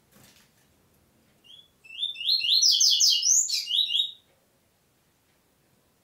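Double-collared seedeater (coleiro) singing one loud phrase of quick, sweeping whistled notes, lasting about two and a half seconds.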